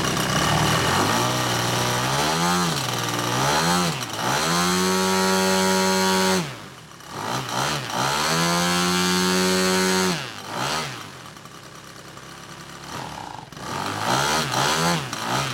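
Desert Aircraft DA100L 100 cc twin-cylinder two-stroke gas engine on a large model aircraft being run up: two quick throttle blips, about two seconds at full throttle, a drop back, a second full-throttle burst, a few seconds at idle, then several more quick blips near the end.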